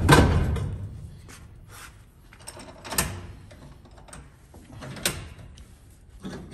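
Metal-on-metal clanks from a steel driveshaft being set in a bench vise and clamped up: one heavy clank at the start that rings on briefly, then sharp single knocks about three and five seconds in, with lighter handling noises between.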